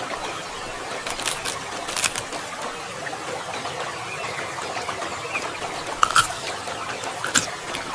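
Eating sounds: scattered short wet clicks and smacks of chewing over a steady hiss, with a few louder clicks about a second in, around two seconds and near the end.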